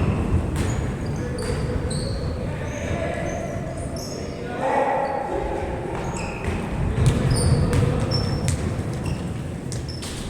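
Indoor basketball game: a ball bouncing on the court, sneakers squeaking, and indistinct shouting from players and onlookers, echoing in a gym.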